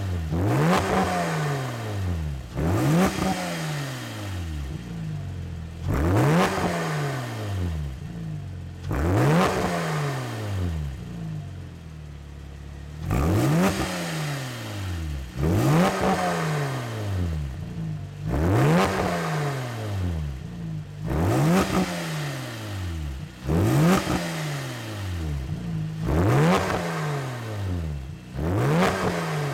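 Porsche 996 Carrera flat-six with an iPE aftermarket exhaust (headers, cat pipes, valved muffler) being free-revved in repeated throttle blips. Each rev climbs quickly and falls back to idle, about one every two seconds, with a short stretch of steady idle between some of them.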